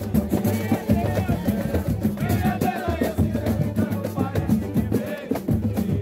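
Live samba from a roda de samba: a steady percussion groove on drums with voices singing over it.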